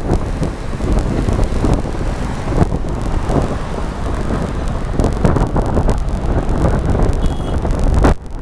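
Car driving at speed, with wind buffeting the microphone in irregular gusts over a steady low road and engine rumble.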